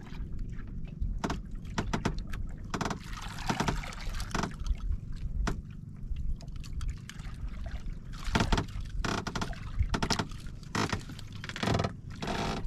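Sea water lapping and splashing against the hull of a small wooden outrigger boat, with scattered knocks and scrapes on the boat.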